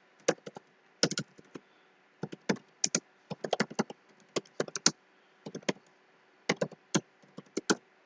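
Computer keyboard keys clicking in irregular clusters of a few presses at a time, with short pauses between.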